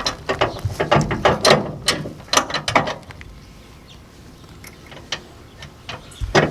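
Metal clicking and clanking from a steel tow hitch and its D-ring being handled: a quick run of knocks and rattles over the first three seconds, a few scattered ticks, then one sharp metal knock near the end.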